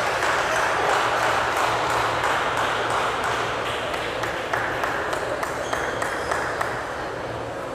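Table tennis ball bouncing, a string of light sharp clicks a few seconds in, over the steady hum of a crowd in the hall.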